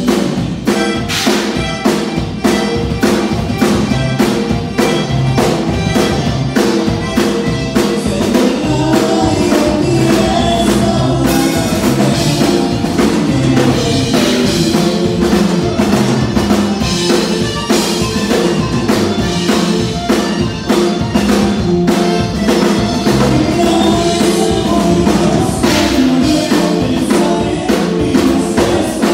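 Conjunto band playing a dance number, with a drum kit keeping a steady beat throughout.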